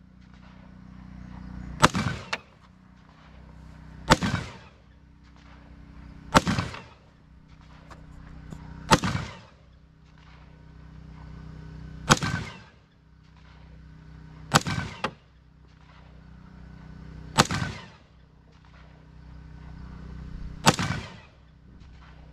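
Smith & Wesson M&P 15 Sport II AR-15 rifle firing 5.56 mm rounds in slow semi-automatic fire: eight sharp shots, one every two to three seconds. A steady low hum sits between the shots.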